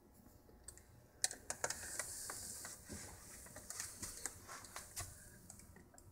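Quick, light scratching and clicking from an English Angora rabbit working at the carpet by a cardboard box. It starts about a second in and lasts some four seconds.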